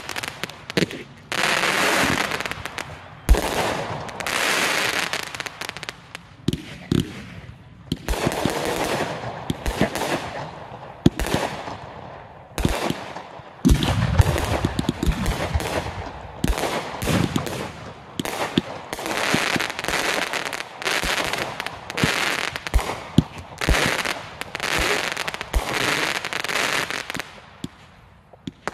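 Fireworks display: aerial shells bursting one after another, sharp bangs with stretches of crackling and hiss between them, going on without a break.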